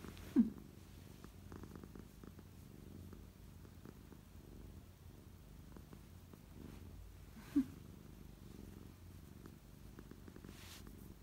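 Domestic cat purring steadily as it is rubbed under the chin, a sign of contentment. Two brief louder low sounds break in, once just after the start and again about seven and a half seconds in.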